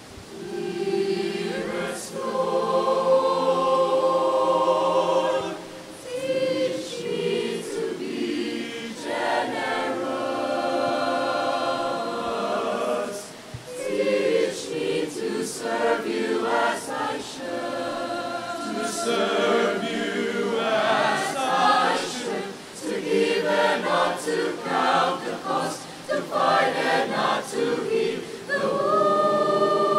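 A choir singing a hymn in several voice parts, the lines sung in phrases with brief pauses between them.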